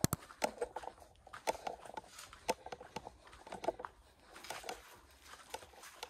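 Footsteps crunching on a dirt path with dry leaves and grass, in an irregular run of short steps, about two a second.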